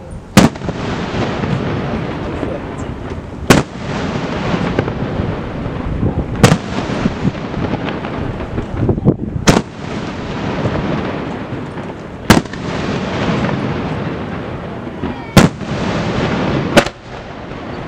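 Aerial firework shells bursting: seven sharp, loud bangs roughly every three seconds, with a steady rumble of noise filling the gaps between them.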